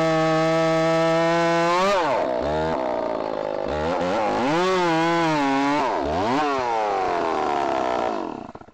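Stihl MS270 chainsaw, its two-stroke clamshell engine ported at the lower transfers, running at a steady high pitch. About two seconds in, the pitch starts to dip and climb back several times as the saw takes load in the cut. The sound then cuts off sharply near the end.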